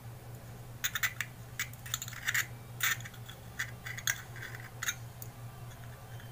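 Small metal clicks and scrapes, about a dozen between one and five seconds in, from handling a Zippo lighter and its insert while the cotton packing is added.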